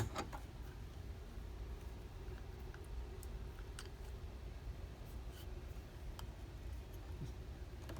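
Wire cutters snipping through the wire of a wind-up hose clamp: one sharp snip at the start, then faint scattered clicks of the wire and tools being handled.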